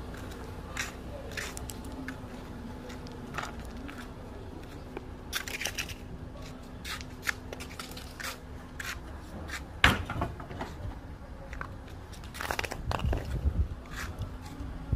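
Crunching footsteps and scraping on a gritty dirt road as an old car tyre is rolled and dragged along, with one sharper knock just before ten seconds in.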